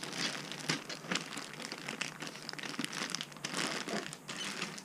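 Plastic kit-parts bag crinkling as it is handled, in irregular rustles.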